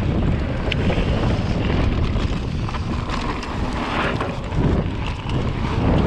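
Wind buffeting the microphone over the rolling noise of a mountain bike riding down a dirt trail, with many small knocks and rattles from the bike.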